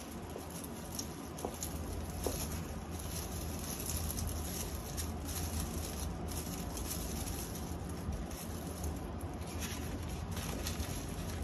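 Brown honeycomb kraft packing paper rustling and crinkling as hands pull it apart to unwrap an item, with many small crackles throughout.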